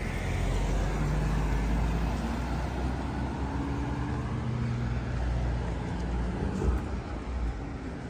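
A car driving past on the road, its engine and tyres making a low rumble that is loudest in the first couple of seconds and eases off near the end.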